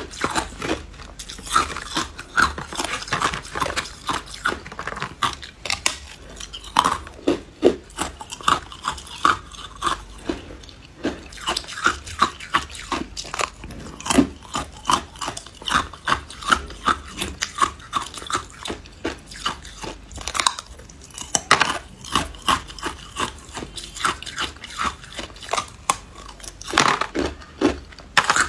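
A person biting off and chewing pieces of a slab of hard ice: a steady run of sharp cracks and crunches, with louder bites now and then.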